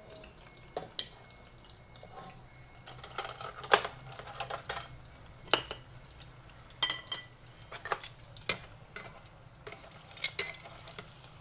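Kitchen utensils clinking and knocking against pans and dishes in irregular sharp strikes, the loudest a little under four seconds in, with one brief metallic ring about seven seconds in.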